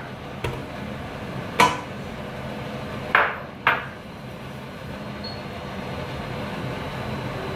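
A wooden spatula and a ceramic bowl knocking against a stainless steel pot as butter is scraped in: four sharp knocks and clinks in the first four seconds, two of them close together, over a steady low hum.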